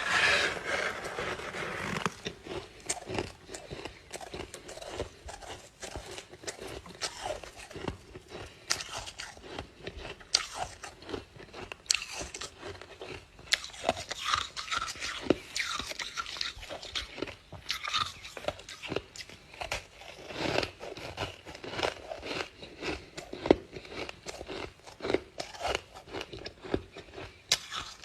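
Ice being bitten and chewed close to the microphone: a long run of sharp, irregular crunches, densest and loudest in the first couple of seconds.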